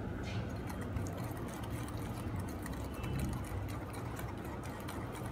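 Wire hand whisk beating thick cake batter in a glass bowl, its wires clicking and scraping quickly against the glass, over a steady low hum.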